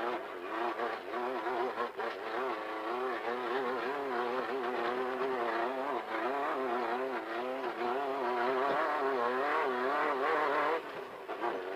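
Off-road race car's engine running hard under load, its pitch wavering rapidly up and down. It grows louder and higher toward the end, then eases off about eleven seconds in.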